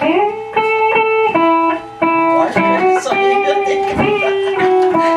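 Instrumental song intro led by a guitar picking a melody of held notes.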